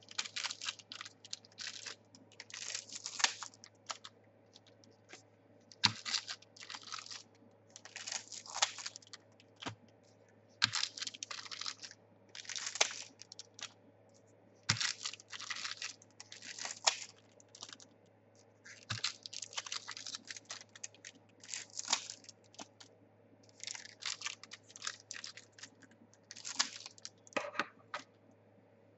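Foil trading-card packs being torn open and the cards handled: repeated bursts of crinkling and tearing, each about half a second to a second long, with short pauses between and a few sharp clicks.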